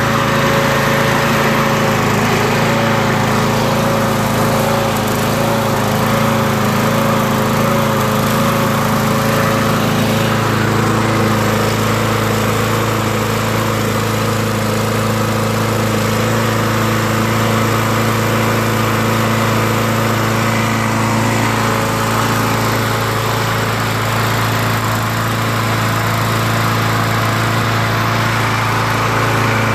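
Briggs & Stratton engine of a Murray walk-behind push mower running steadily at high RPM, its carburetor freshly cleaned to cure surging; the note holds even with no hunting up and down.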